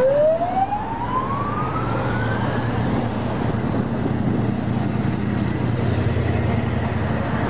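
Heavy military vehicle engines rumbling steadily as a column passes. Over the first three seconds a single whine rises steadily in pitch and then fades.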